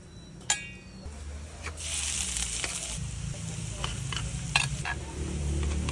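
Minced ginger sizzling as it is spooned into hot oil in a cast iron pan. The sizzle starts about two seconds in, with a few light clinks of the metal spoon against the pan near the end.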